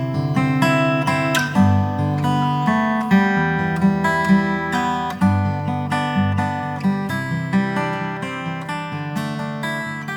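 Background music: strummed and picked acoustic guitar playing a steady chord progression, fading out gradually near the end.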